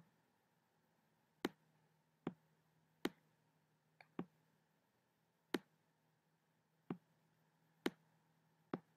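Computer mouse button clicking about nine times, single sharp clicks at irregular gaps of roughly a second, as the pointer grabs and drags points on the screen.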